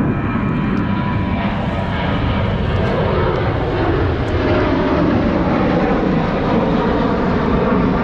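Airplane flying low overhead, its engine drone loud and steady, the pitch sliding slowly down as it passes.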